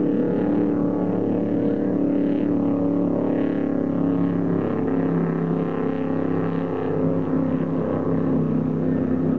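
Offshore racing powerboat's engines running flat out at speed: a steady, many-toned engine drone, with the hiss of the hull's spray over it.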